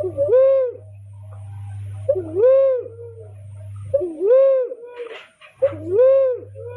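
Barred cuckoo-dove calling: a deep, rising-then-falling cooing note repeated about every two seconds, four times, over a low steady hum that drops out briefly near the middle.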